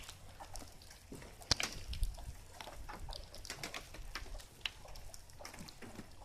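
Ducks splashing and dabbling in water: many small irregular splashes, with soft low duck calls now and then.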